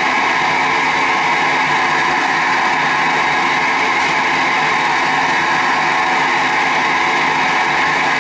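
Pen-turning lathe running steadily with a constant motor whine and hiss.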